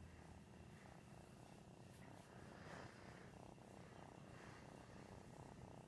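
A domestic cat purring softly and steadily while being stroked, close to the microphone.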